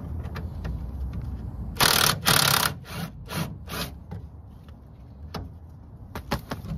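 Cordless impact wrench run in short bursts on the rear suspension bolts: two half-second bursts about two seconds in, then three brief ones.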